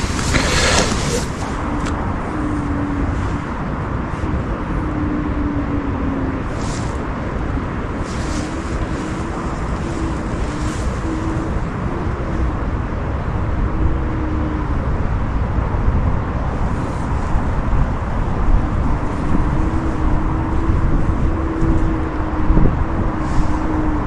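A thin, wavering wail that comes and goes in long drawn-out stretches over a steady low rumble, presented as the lament of an unseen woman. Rustling handling noise in the first second.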